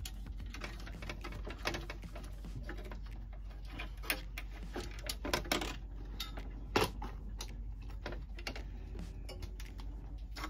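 Scattered clicks and light clatter of wires and plastic connectors being handled and pulled off a marine air conditioner's control box, the sharpest click about two-thirds of the way through, over a steady low hum.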